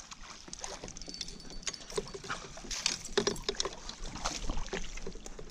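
Water splashing with irregular knocks against the kayak as a hooked largemouth bass thrashes at the surface beside it during the fight.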